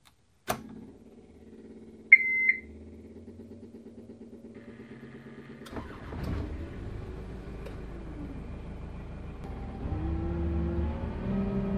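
A hire cruiser's inboard engine comes in after a click about half a second in and runs with a steady, even beat. Two short high beeps, the loudest sounds, come a couple of seconds later. From about six seconds in the engine sound grows heavier and louder, and rises again near the end as the throttle lever is worked.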